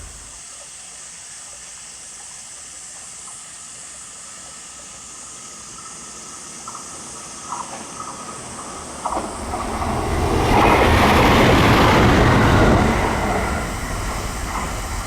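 Electric train approaching and passing. A few sharp wheel clicks come first, then the sound swells to its loudest rush about ten seconds in and begins to fade near the end.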